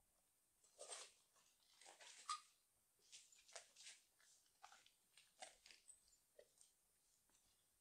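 Footsteps crunching on grit and debris on bare concrete floor and stairs: faint, irregular scuffs and crunches a little over one a second.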